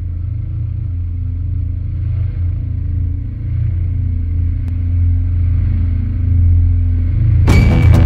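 A deep, steady rumbling drone from a cinematic intro soundtrack swells slowly. About seven and a half seconds in, a music track with sharp, regular beats cuts in.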